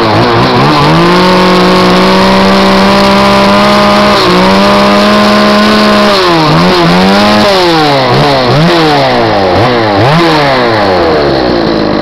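Stihl MS170 two-stroke chainsaw with a modified muffler, revved up and held at high speed for about five seconds, then blipped up and down about once a second. It doesn't run well, which the owner puts down to low compression.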